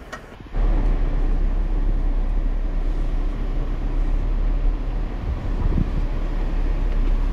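Jeep Wrangler Rubicon crawling slowly over rock, heard from inside the cab: a steady low rumble of engine and drivetrain. It begins abruptly about half a second in.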